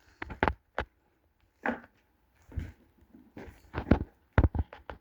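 Irregular footsteps and knocks, about a dozen sharp strikes at uneven spacing, like someone picking their way over loose debris and boards.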